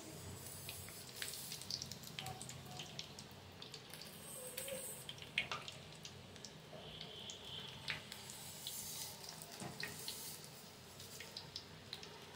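Batter-coated chicken drumsticks deep-frying in hot oil: a steady bubbling sizzle with scattered pops and crackles, and one sharper click about five seconds in.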